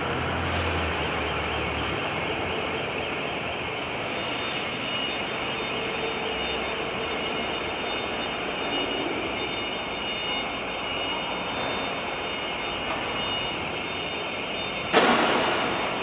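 CNC router spindle running and cutting into a wooden door, a steady noisy whine with faint high tones. A sharp knock about fifteen seconds in.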